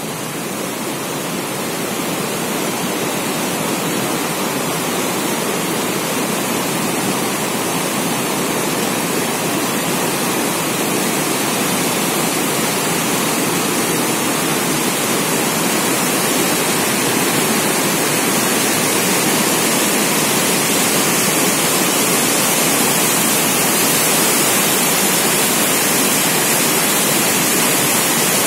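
The Ganga (here the Bhagirathi) rushing in a turbulent, foaming torrent: a steady, dense rush of whitewater that grows a little louder over the first several seconds.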